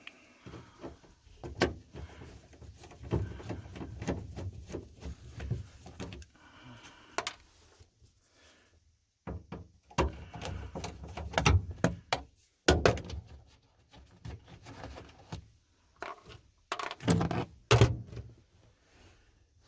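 Hand work on interior trim screws inside a car body: irregular clicks, scrapes and thunks of a screwdriver turning screws out of the panels, with the heaviest knocks about ten seconds in and near the end.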